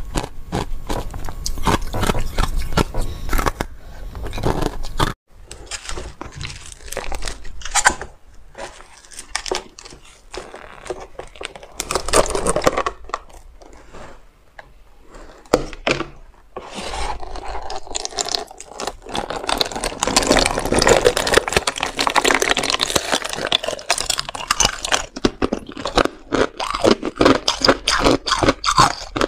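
Clear ice with frozen pomegranate seeds bitten and chewed close to the microphone, a run of sharp crunches. After a short break, a frozen block in a plastic container is worked loose and broken, a long stretch of dense crackling and scraping, then more crunching near the end.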